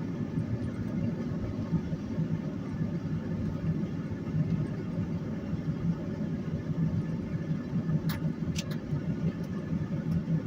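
Car engine running with a steady low tyre and road rumble, heard from inside the cab while driving slowly on a snow- and ice-covered road. A few faint clicks come about eight seconds in.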